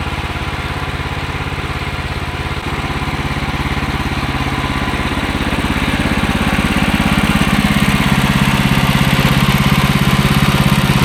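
Small gasoline engine, likely the bandsaw sawmill's engine, running steadily and getting louder from about a third of the way in, as if throttled up.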